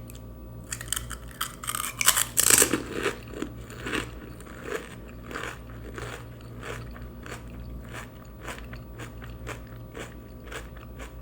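A person biting a whole crisp pani puri filled with water and eating it. The crunching starts about a second in and is loudest two to three seconds in, then settles into steady chewing with many small crackles and clicks.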